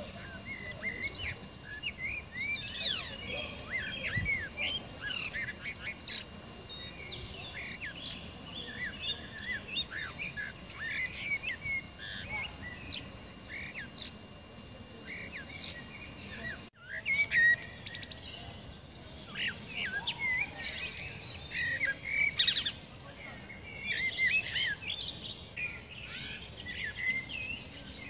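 Common blackbird singing: quick, overlapping chirps and whistled notes that run on almost without a pause, with a brief break about two-thirds of the way through.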